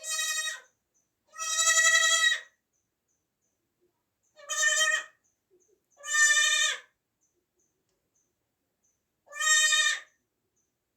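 Newborn baby goat bleating: five high-pitched calls, each up to about a second long, with gaps between them.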